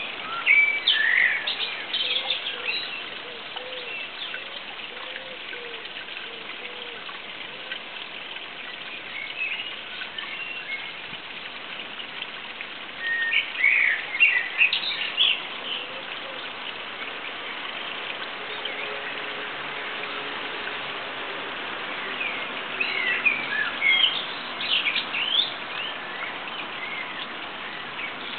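Small birds singing in short bursts of high chirps, four or so separate phrases, over a steady outdoor hiss.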